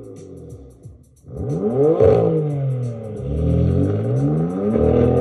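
A car engine revving up and down in repeated rising and falling sweeps, over music with a quick ticking beat. The sound drops away briefly about a second in before the revving resumes.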